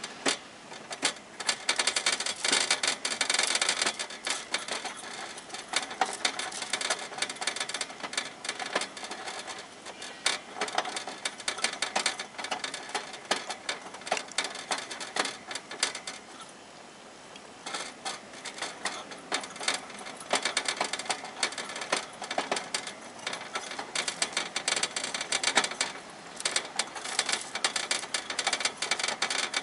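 Hamster gnawing on the metal wire bars of its cage: rapid, irregular clicking and rattling of teeth on the bars, with a short pause a little past the middle.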